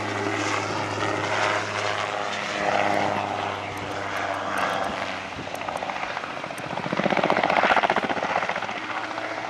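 RotorSport UK Calidus autogyro in flight, its piston engine and pusher propeller making a steady drone. The sound swells and takes on a fast, even pulsing about seven seconds in as the machine comes closer, then eases off.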